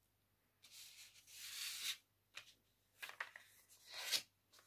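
Sheet of paper rustling and crinkling as hands fold and handle it. There is a long rustle about a second in, a few short crackles, and a louder rustle near the end as the paper is lifted.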